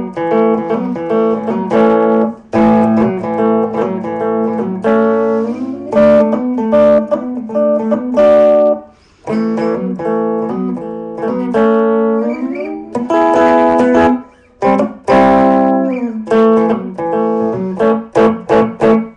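Electric guitar played through its front (neck) pickup, a Chinese replacement pickup that the owner finds poor: a run of strummed chords and picked notes with a couple of bent notes, broken by two short pauses.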